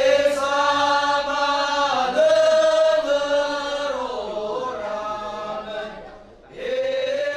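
Unaccompanied chanted singing in long held notes that shift pitch every second or two. The singing fades away about six seconds in and starts again near the end.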